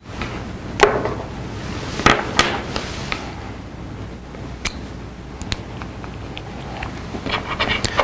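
Small inductive proximity sensor and its cable connector being handled and fitted together: a few scattered sharp clicks and taps, the loudest about 1 and 2 seconds in, over a steady low hum.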